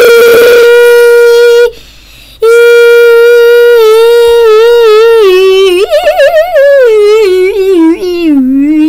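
A man's voice holding a loud, drawn-out 'boiiii' on one steady pitch, breaking off once for about half a second about two seconds in. The note then resumes, wavers, and slides lower toward the end as the breath runs out.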